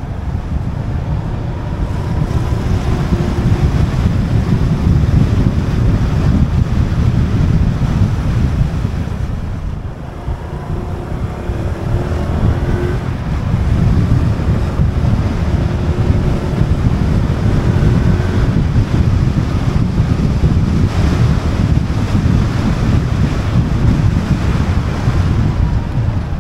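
Strong wind buffeting on an action camera's microphone, a loud fluctuating low rumble, with a faint engine note rising and falling beneath it a few times.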